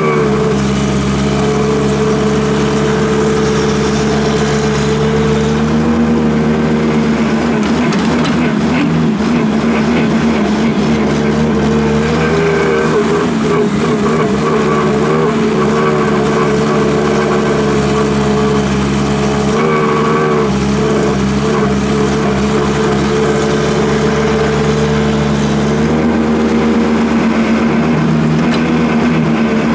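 Diesel engine of a Hyundai Robex wheeled excavator running steadily under work, its note wavering and shifting every few seconds as the hydraulics take load while the bucket digs and swings soil over a dump truck.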